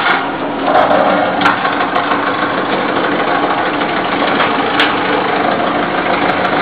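Wood shaving machine running, its belt-driven cutter giving a steady loud mechanical hum and rattle, louder for a moment about a second in, with a few sharp clicks.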